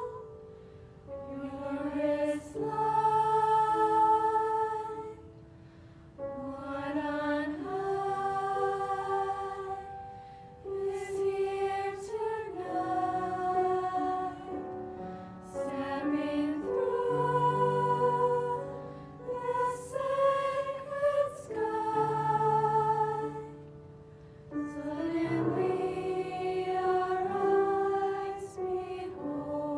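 Mixed high school choir of girls and boys singing a slow carol in several-part harmony. Long held chords come in phrases that swell and fade, with short pauses between them.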